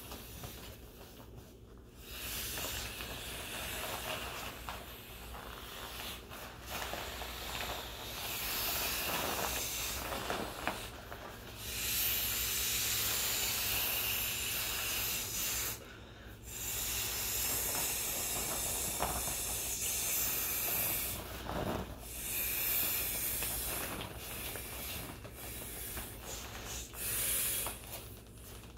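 Yellow vinyl inflatable fish toy being blown up by mouth: a run of long, breathy blows of air into its valve, each lasting a few seconds, broken by short pauses for breath.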